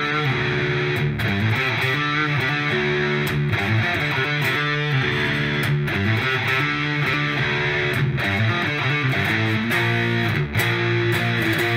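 Closing-credits music: a steady rock-style track led by strummed electric guitar, with bass and a regular beat.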